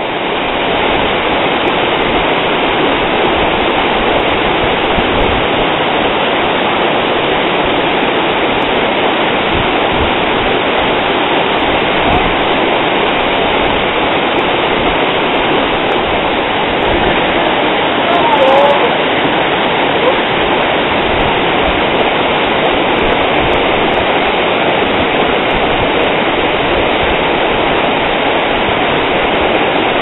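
Steady rush of water pouring over a waterfall and down rocky rapids, an even, unbroken sound. A brief human voice rises over it about two-thirds of the way through.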